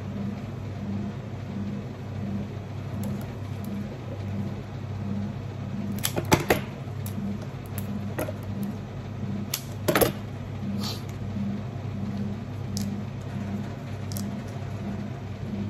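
Steady low mechanical hum that pulses regularly, about once every 0.7 seconds. Over it come a few brief sharp snaps, a quick cluster about six seconds in and a single louder one about ten seconds in.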